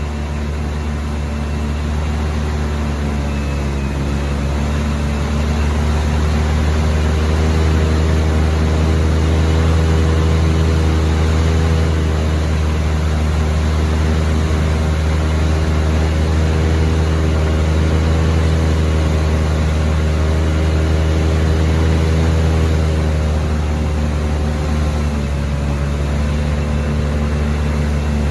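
Airboat engine and propeller running steadily at speed, a loud drone whose pitch rises a little a few seconds in and dips briefly near the end.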